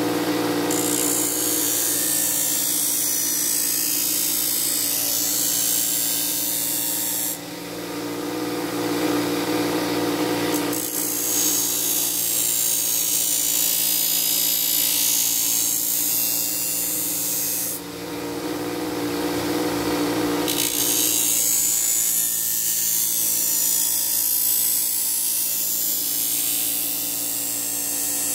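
Bench grinder motor running steadily while the edge of a Gerber machete is held against its compound-loaded MDF stropping wheel: a high hissing rub in three long passes of about seven seconds each, with only the motor hum in between. This is the stropping stage, taking the burr off the freshly ground edge.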